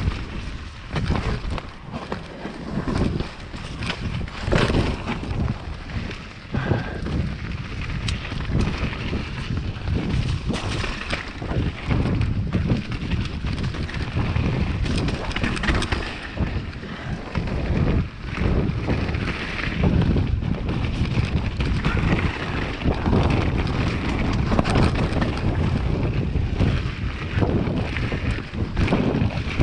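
Mountain bike descending a dirt forest trail at speed: wind buffeting the action camera's microphone over the rumble of tyres on dirt, with frequent knocks and rattles as the bike runs over roots and rocks.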